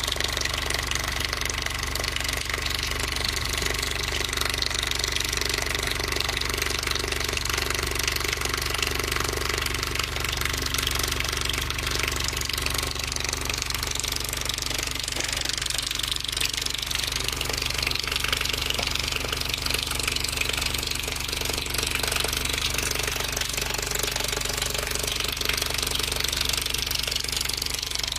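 Subwoofer driven by a low test tone from a tone generator, giving a steady deep rattling buzz, with water from a taped hose running down over the speaker and splashing.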